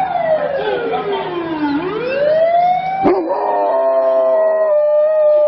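A dog howling: one long wail that falls in pitch and then rises again, a click about three seconds in, and then a howl held at a steady pitch.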